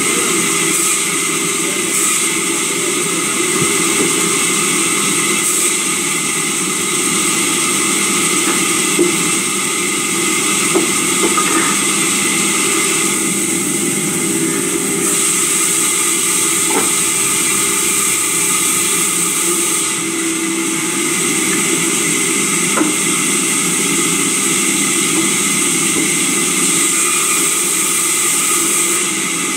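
Sawmill saw machinery running steadily with a constant hum and hiss, with a few brief knocks as timber is handled on the saw bench.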